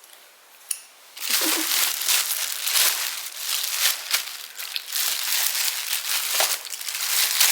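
Plastic packaging crinkling and rustling as it is handled, starting about a second in after a single short click.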